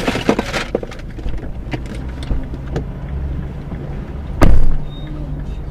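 Car engine idling, heard from inside the stopped car's cabin, with a steady low hum and scattered small knocks and rustles. One loud thump comes about four and a half seconds in.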